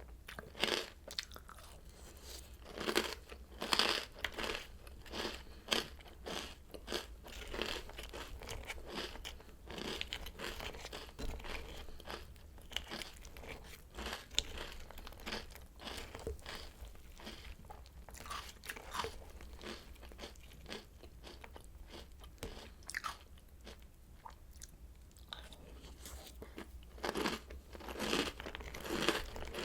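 Person chewing crunchy Oreo O's cereal, a run of irregular crunches with a short lull about three-quarters of the way through before the crunching resumes.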